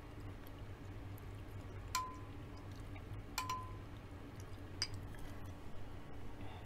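Metal spoon clinking against a small glass bowl of soup: two clear clinks with a brief ringing tone, about two seconds in and about three and a half seconds in, then a lighter tick near the end.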